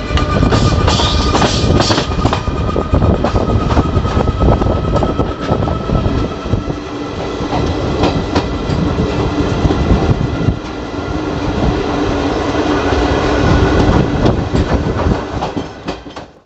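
Passenger train running along the track: a steady rumble with repeated clickety-clack of wheels over rail joints and a faint steady whine. It cuts off suddenly at the end.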